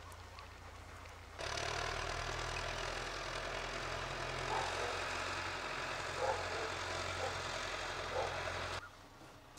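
Farm tractor engine running steadily, a low hum under a broad noisy wash; it comes in suddenly about a second and a half in and cuts off shortly before the end.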